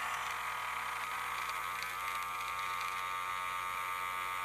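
Hitachi 12-volt cordless grinder running at its lowest speed setting, a steady electric motor whine at an even pitch.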